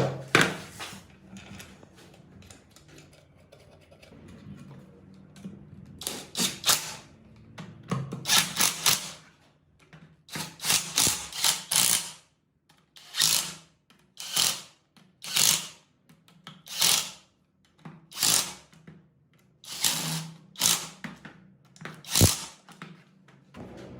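A hand tool worked in short, even strokes, about one every second and a half, after a few seconds of faint scattered clicks.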